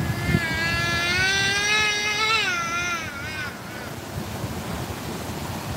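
River water running over rocks. For about three seconds a loud pitched tone with many overtones sounds over it: it wavers, rises slightly, then falls away and fades.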